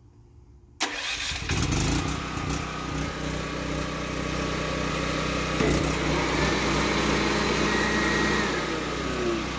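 Westinghouse WGen5300DF portable generator's engine starting up on its own about a second in, triggered by the automatic transfer switch sensing lost utility power, then settling into a steady run.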